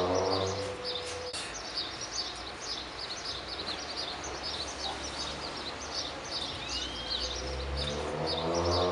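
Many small birds chirping continuously over a steady background hiss. A low humming tone with overtones swells up at the start and again near the end.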